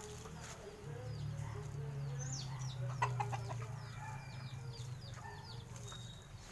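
Chickens clucking, with many short, high, falling chirps throughout and a low hum that swells about a second in and fades near the end; a few sharp clicks about three seconds in.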